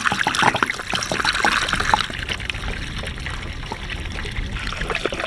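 Water pouring from an 18-litre plastic water jug through a plastic funnel into a sailboat's deck water fill, refilling the tank. Lots of small splashes in the first couple of seconds, then a steadier trickling stream.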